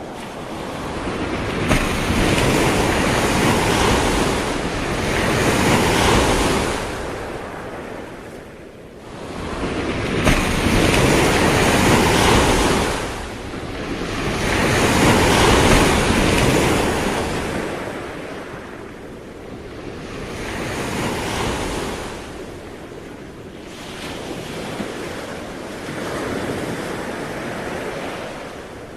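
Sea waves breaking and washing on a shore, the surf swelling and ebbing in slow surges every four to five seconds, with some wind.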